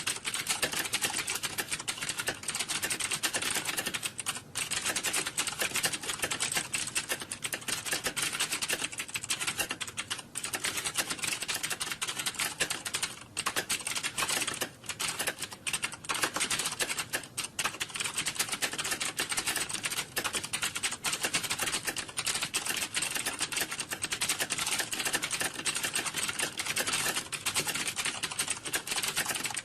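Computer keyboard typing: rapid, continuous keystroke clatter with only a few brief pauses.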